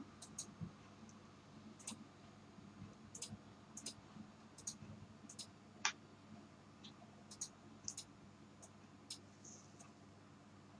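Near silence: faint room tone with small, irregularly spaced clicks, the loudest a little before the middle.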